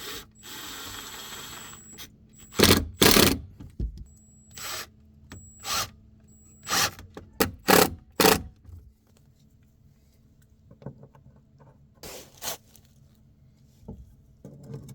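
Work noises from tools and materials being handled: a scraping hiss lasting about a second and a half near the start, then a string of sharp knocks and clatters, several in quick succession through the middle and two more near the end.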